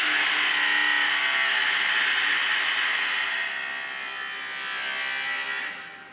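Door squeaking very loudly in one long, drawn-out squeal. It dips slightly about four seconds in, swells again, then stops near the end.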